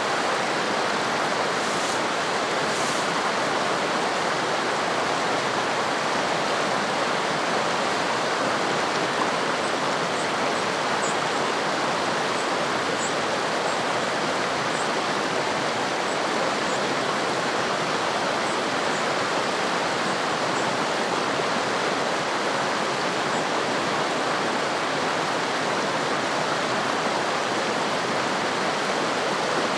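Mountain stream rushing over rocks: a steady, unbroken rush of white water.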